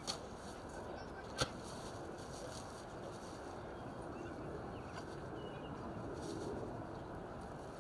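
Steady outdoor background noise on a soccer field, with two sharp knocks: a small one as it begins and a louder one about a second and a half in. A few faint bird chirps come later.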